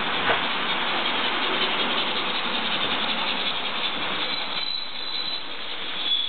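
Miniature model trains running on the layout's track: a steady rolling rumble of small motors and wheels, easing a little near the end before picking up again.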